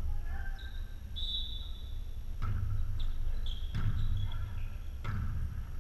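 A volleyball being struck during a rally: three sharp smacks about a second and a half apart, with shoes squeaking on the gym floor between them.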